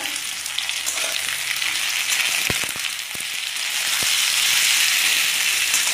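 Vegetables and onions sizzling in hot mustard oil in a steel kadai while a metal spatula stirs them, knocking against the pan a few times about halfway through. The sizzle grows louder near the end.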